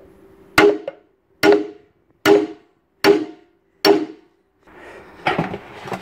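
Steel claw hammer striking the end of a Hotpoint washing machine's drum shaft, five sharp ringing blows a little under a second apart, knocking the shaft out of the tub's bearing housing. A rougher clatter follows in the last second or so as the drum comes loose.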